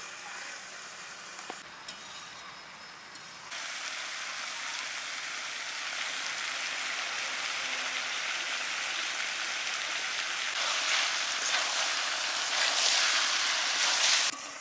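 Chicken pieces frying in a metal karahi: a steady sizzle that starts suddenly a few seconds in and grows louder near the end as a metal spoon stirs them with salt and turmeric. Before the sizzle starts there are only quiet sounds and a couple of light clicks.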